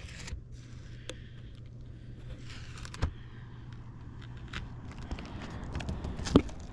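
Scattered clicks, rustling and a couple of dull thumps from someone moving about and handling things, over a low steady hum that stops about five seconds in.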